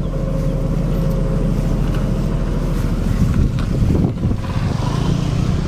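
Deep bass rumble from a truck-mounted carnival sound system's stacked subwoofers during a sound check, with wind buffeting the microphone.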